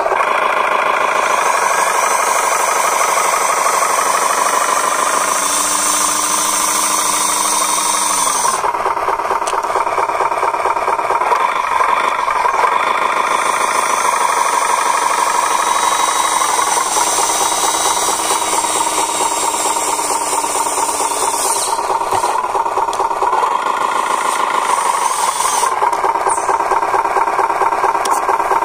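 Radio-controlled model dump truck running as its tipper bed raises to dump a mud load: a steady motor drone with a rapid, engine-like chugging that shifts in pitch a couple of times.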